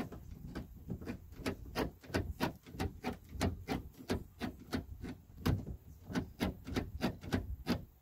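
Rapid run of sharp mechanical clicks, evenly paced at about three a second, that stops suddenly at the end.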